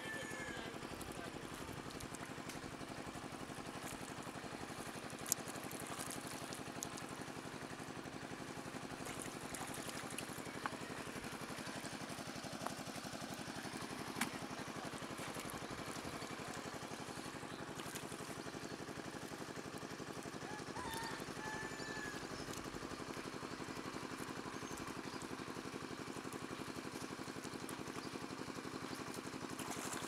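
A steady engine hum drones on without change, with a few faint sharp clicks over it, the clearest about five seconds in.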